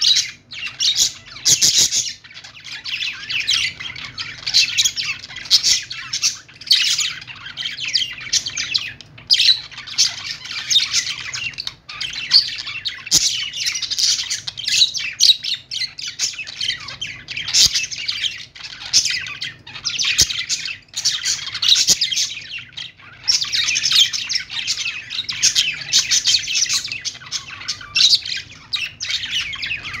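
A group of caged budgerigars chattering: many overlapping high chirps and warbles with no break, apart from a few brief lulls.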